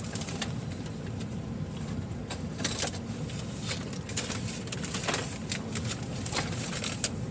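Steady low rumble with a few faint clicks and rustles scattered through it.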